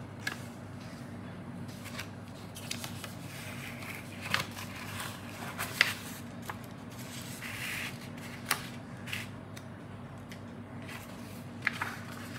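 Paper rustling and crinkling as a folded paper letter is opened out and handled, with scattered sharp ticks and taps, over a steady low hum.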